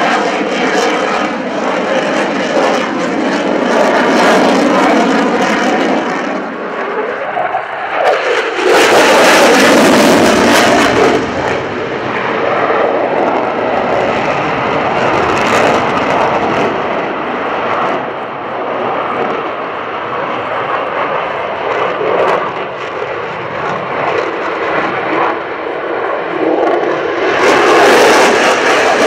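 Lockheed F-22 Raptor's twin Pratt & Whitney F119 turbofan jet engines roaring through a display manoeuvre. The pitch rises shortly before a louder stretch about nine seconds in, and the noise swells again near the end.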